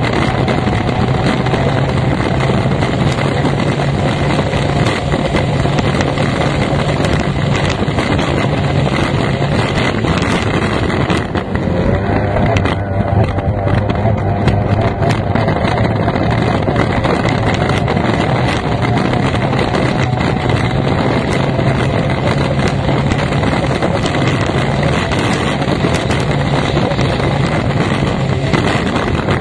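Racing powerboat's outboard engine running hard, heard from the cockpit over the rush of wind and water. The engine note drops a little about eleven seconds in, then holds steady again.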